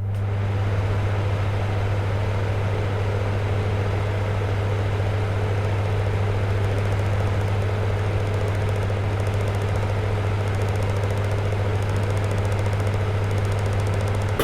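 A steady low machine hum with a constant hiss over it, like an engine idling. It starts and stops abruptly.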